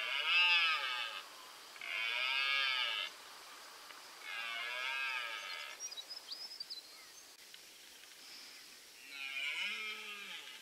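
Red deer stag roaring: four long, hoarse roars, each rising and falling in pitch. The first three come in quick succession and the fourth, about nine seconds in, drops lower at its end.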